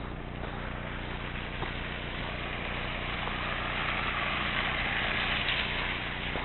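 A car driving past on a snowy road, its tyre and engine noise swelling to a peak about five seconds in and then fading.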